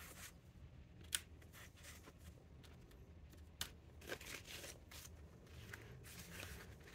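Faint rustling of paper banknotes being pulled from a plastic binder envelope and counted by hand, with a few short crisp snaps about a second in and again around three and a half to four seconds in.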